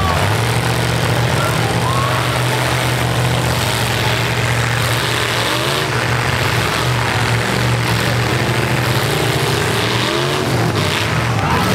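Demolition-derby pickup truck engines running together in a loud, steady drone, with some revving.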